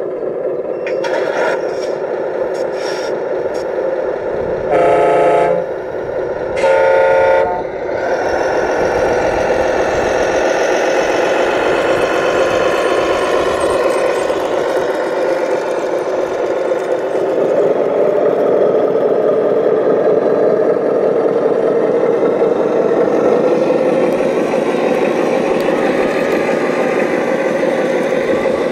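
Electronic sound module of a radio-controlled scale heavy truck: a few short clicks, then two loud air-horn blasts about two seconds apart, followed by a simulated diesel engine running steadily, its pitch wavering slightly as the truck pulls away.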